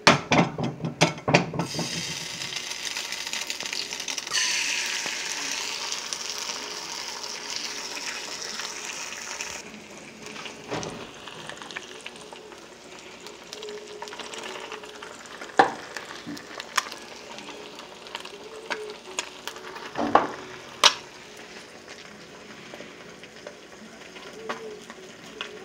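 An egg frying in hot fat in a skillet. A quick run of sharp clicks comes in the first two seconds, then loud sizzling. The sizzling eases after about ten seconds into a quieter sizzle with a few sharp clicks.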